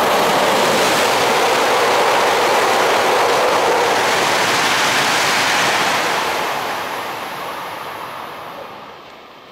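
E5 series Shinkansen bullet train passing through the station non-stop at high speed: a loud rush of air and wheels that holds steady for about six seconds, then fades away as the train recedes.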